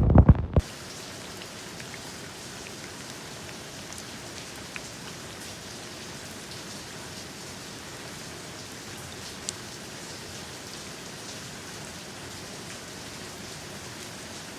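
Steady rain falling, an even hiss with a few single drops ticking louder now and then. A loud, low, throbbing sound fills the first half second and cuts off abruptly.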